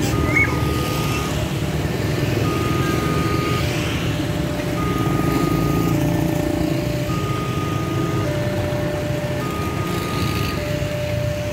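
Railway level-crossing warning alarm sounding in alternating high and low tones, each about a second long, while the crossing barriers rise. Underneath it, the engines of a crowd of motorcycles are running.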